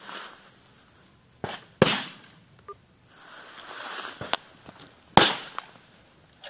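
Two shotgun shots from a neighbouring sport-trap clay layout, the first about two seconds in and the second about three seconds later, each with a short fading tail. A few fainter clicks and knocks sit around them.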